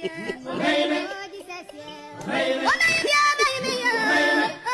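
A high-pitched voice singing over music, with long held notes in the second half.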